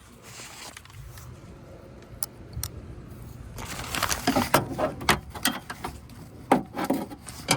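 Magnet pickup tool clicking and rattling against the metal inside a car door while fishing out a dropped bolt: a couple of sharp clicks, then a dense run of clattering about halfway through and another near the end.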